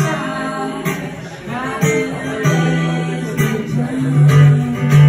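Acoustic guitar strummed to accompany a woman singing live, with long held notes in the second half.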